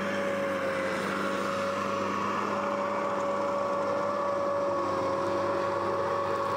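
Steady machine or engine drone with a constant pitched hum over a background hiss.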